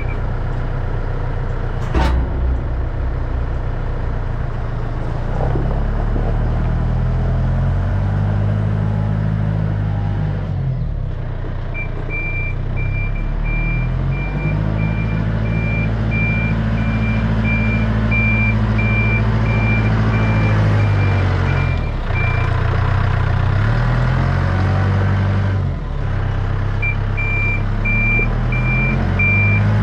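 Engine of a vehicle moving a trailer, its revs rising and falling as it manoeuvres, with a reversing alarm beeping in long runs while it backs up. A sharp clunk about two seconds in.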